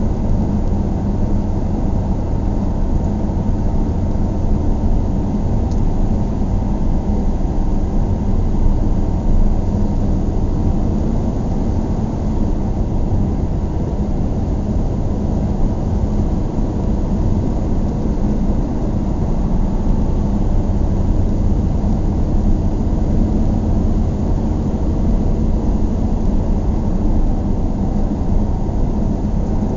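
Steady, unchanging low rumble of a vehicle, like engine and road noise.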